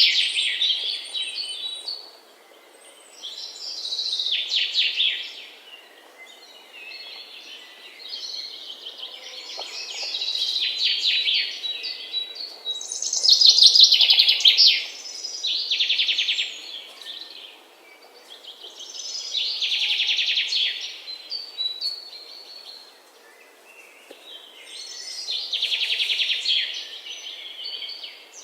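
Birdsong: repeated high-pitched phrases of rapid trilled chirps, each a second or two long, with short pauses between them.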